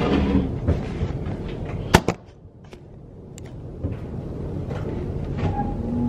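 Hinged metal cover on a combine being opened and handled, with rattling and one sharp metal clack about two seconds in, then a few light clicks.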